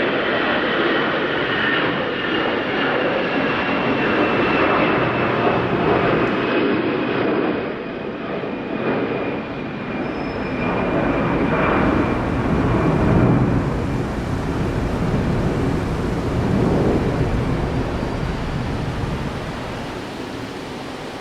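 Airbus A330-300's Pratt & Whitney turbofan engines on landing: a whine falling slowly in pitch over the first ten seconds, then a deeper rumble that swells and fades near the end.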